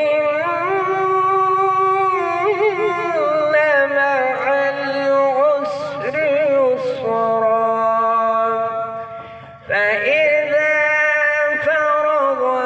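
A man's melodic Quran recitation (tilawat): long, drawn-out notes with wavering ornaments, amplified through a microphone and loudspeaker. The voice falls away briefly about nine and a half seconds in, then comes back louder on a new phrase.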